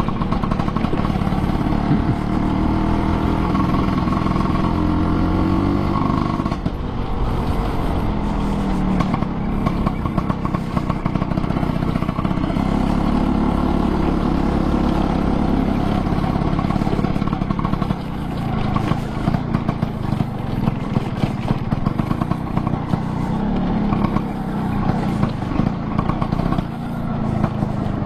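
Two-stroke Vespa scooter engine running under way, its pitch rising and falling with the throttle. Sharp short knocks come through repeatedly in the second half.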